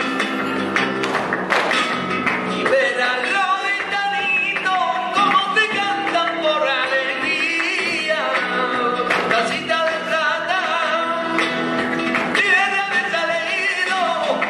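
Flamenco music with a solo sung vocal wavering with ornaments over a dense accompaniment, with sharp percussive strokes through it.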